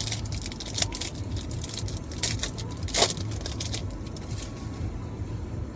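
Wrapper of a 2012 Score football card pack being torn open and crinkled: a run of crackles and rustles, loudest about three seconds in, over a steady low hum.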